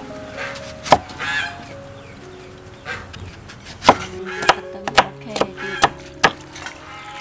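Crinkle-cut knife slicing through firm green fruit and striking a wooden chopping board: one chop about a second in, then a run of about six quicker chops from about four seconds in.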